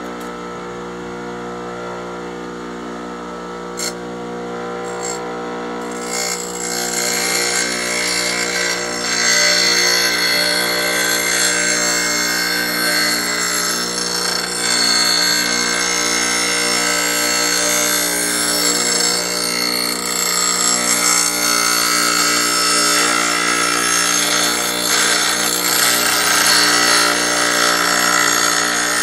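Bench grinder motor running with a steady hum. From about six seconds in, a steel planer blade held in a bent-washer jig is ground on the wheel, a loud harsh high grinding that goes on with small rises and falls, sharpening the blade's edge. A couple of light clicks come just before the grinding starts.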